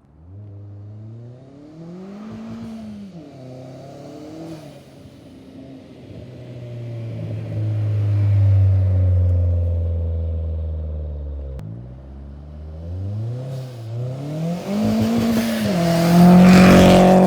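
A 2001 Audi A4's turbocharged 1.8-litre four-cylinder (1.8T with a Garrett GT2860RS ball-bearing turbo and a straight 2.5-inch exhaust) accelerating hard in a fly-by. The engine note climbs and drops several times as it shifts, and it is loudest near the end as the car passes close by.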